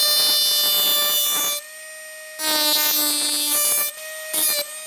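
Handheld micromotor rotary tool running with a steady whine, its small grinding bit scoring lines into a sheet-metal decoy fin in two long passes, then a brief touch near the end.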